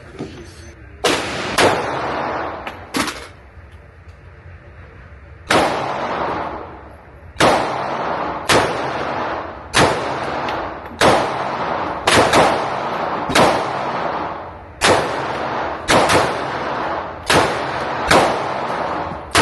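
Gunshots fired one at a time, each followed by a ringing echo. Three shots come near the start, then a short pause, then a steady string of about a dozen more, roughly one every second or so.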